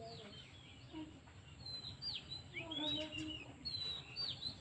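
Small birds chirping, with many short, quick sweeping notes overlapping, and a brief lower call about halfway through.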